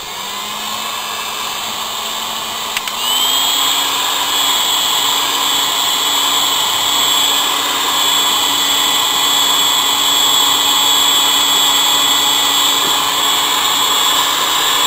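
Hot air gun blowing steadily with a motor whine, heating the phone's display to soften its adhesive for removal. It comes on at the start and steps up in pitch and loudness about three seconds in, then holds steady.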